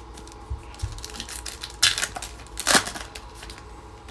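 Trading cards being handled in the hands: dry rustling and sliding of the card stack, with two louder scraping swishes, about two seconds in and just before three seconds.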